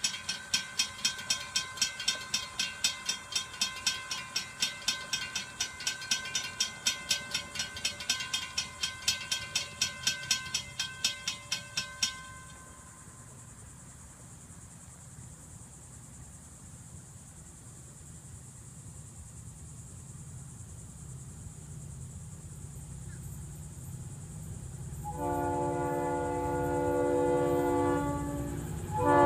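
Railroad crossing bells ring in rapid, even strokes while the crossing gates come down, then stop about twelve seconds in. The low rumble of an approaching freight train's diesel locomotives then slowly builds. About 25 seconds in, the lead locomotive's multi-note air horn sounds a long blast, with a brief break just before the end.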